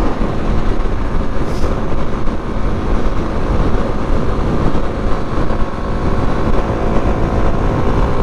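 Kawasaki KLX250's single-cylinder four-stroke engine running steadily at highway speed, mixed with a heavy rush of wind over the microphone.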